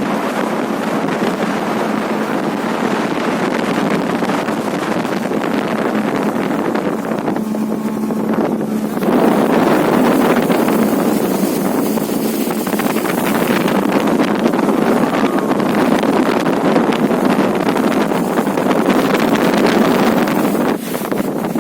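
A motorboat's engine runs steadily with rushing water and wind buffeting the microphone, getting louder about nine seconds in.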